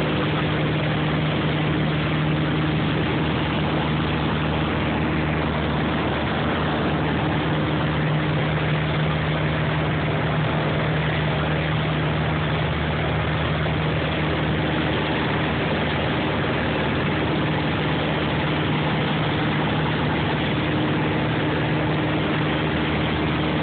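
Aircraft engine drone heard inside the cabin in flight: a constant hum under an even rushing noise, unchanging throughout.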